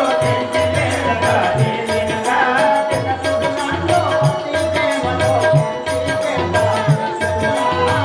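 Live Telugu folk-theatre music: a steady drum beat under a held tone, with rattling, jingling percussion keeping time.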